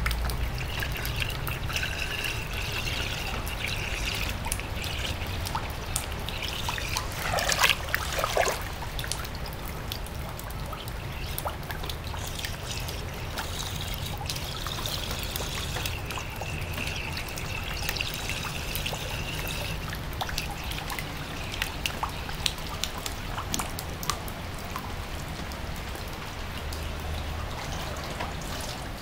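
Rainwater trickling and pouring over a concrete patio and swirling down into a drain. About seven and a half seconds in there is a brief louder burst of splashing.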